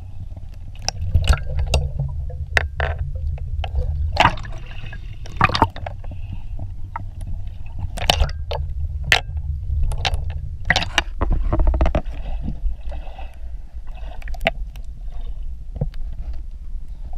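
Water sloshing and bubbling around an action camera held half in and half under the water by a swimmer, heard as a heavy muffled low rumble with many sharp splashes and knocks of water against the camera throughout.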